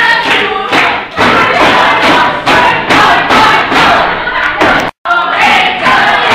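A group of teenage students singing and shouting together in unison, loud and with a regular pulse, cut off for an instant about five seconds in.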